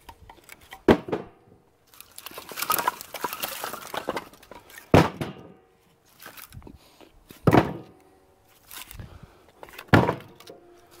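Pieces of dry, seasoned split firewood being tossed and landing with sharp wooden clunks: four loud ones a few seconds apart, with a run of smaller clattering knocks between the first two. The hollow ring of the pieces is what marks the wood as ready to burn.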